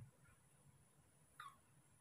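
Near silence: room tone, broken by one short, faint falling squeak about one and a half seconds in.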